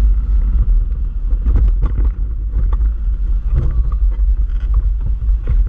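Off-road vehicle driving slowly over a rough, rocky dirt track: a steady low engine and road rumble with scattered knocks and rattles as it goes over stones.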